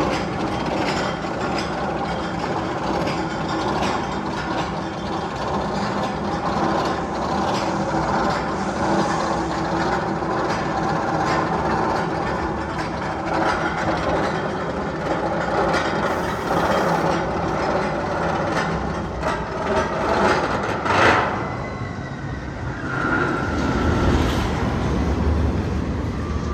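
A steady rumbling clatter like a train running on rails, with a held hum underneath and many small clicks, and a louder clatter about 21 seconds in.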